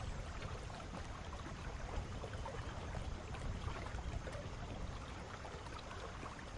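Steady flowing stream water: a soft, even rush and trickle.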